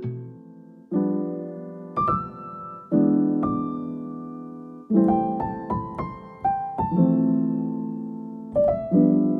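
Background music: slow keyboard chords, a new one struck every second or two and each left to fade away.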